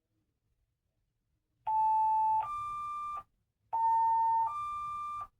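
Emergency dispatch alert tones over a fire/EMS dispatch radio: a steady lower beep, then a higher one, each under a second long, sounded twice in a row to open a new dispatch call.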